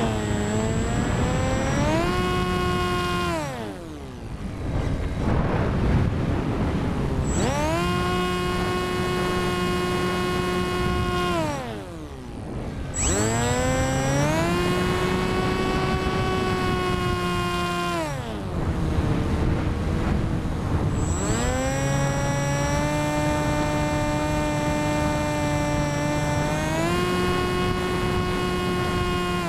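Electric motor and propeller of an FPV Versa flying wing, heard from the onboard camera: a steady whine that falls away twice, about three and twelve seconds in, into a rush of air before climbing back to pitch. It sits at a lower pitch for a few seconds later on, as the throttle is eased and opened again.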